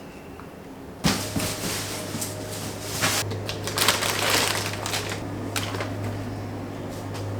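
A steady low electric hum starts suddenly about a second in, with irregular crackling and clattering over it, and cuts off abruptly at the end.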